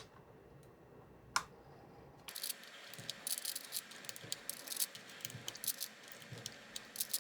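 Small plastic keycaps clicking and clattering as they are handled and fitted onto a keyboard: one sharp click about a second in, then a steady run of quick clicks and rattles from about two seconds in.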